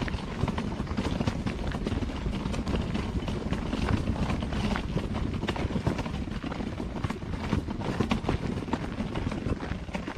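Footsteps crunching on a gravel trail at a walking pace, over a constant low rumble.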